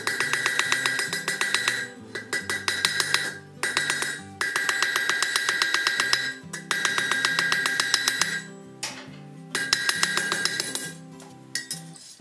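Hand hammer striking hot iron over an anvil horn in bursts of rapid blows, with the anvil ringing, over background music.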